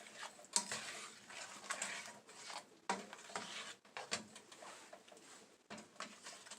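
Butter, brown sugar and banana sauce simmering in a pan, faintly crackling and bubbling in irregular spurts.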